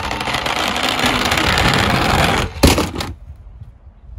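Plastic toy ambulance rolling fast down a wooden ramp with a steady rattle of its wheels, then crashing into a cardboard box of toy vehicles with a sharp clatter about two and a half seconds in.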